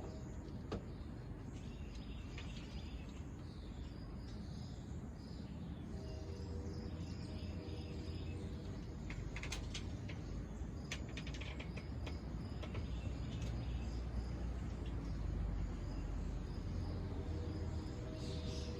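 Outdoor ambience: scattered short bird chirps and insect calls over a steady low rumble, with a faint steady hum that fades in and out a few times.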